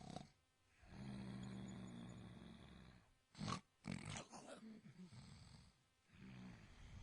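Snoring: one long, buzzing snore, then a few short, sharp snorts, with another snore starting near the end.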